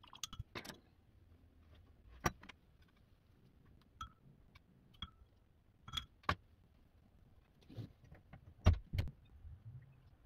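Irregular light clicks and knocks of small objects being handled, about ten of them spread unevenly, with the loudest pair near the end.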